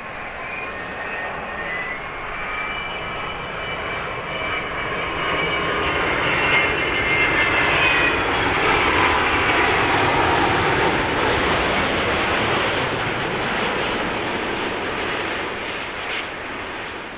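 Boeing 787-10's twin Rolls-Royce Trent 1000 turbofan engines at approach power as the airliner comes in low on final approach to land. A jet roar builds to its loudest about seven to ten seconds in, then slowly fades, with a high whine from the engines through the first half.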